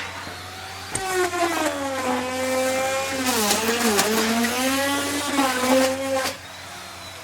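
Electric wood router running at high speed on wood, a high-pitched whine whose pitch sags as the bit bites into the cut and then recovers, with a sharp click about a second in. The level drops off sharply a little after six seconds.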